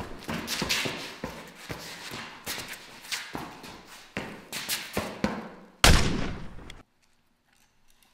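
Off-screen scuffle: a rapid, irregular run of thumps, knocks and blows, then one loud bang about six seconds in that cuts off suddenly.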